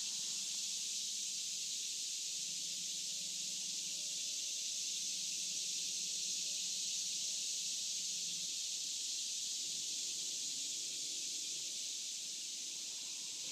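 Daytime summer insect chorus: a steady, high-pitched hiss, with a faint low hum underneath for a few seconds in the middle.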